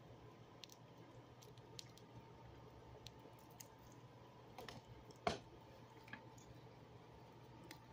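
Near silence: room tone with a few faint, scattered clicks, the sharpest about five seconds in.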